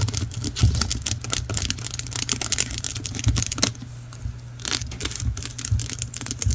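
Rapid fingernail tapping and clicking on a small handheld object, with a brief lull about four seconds in.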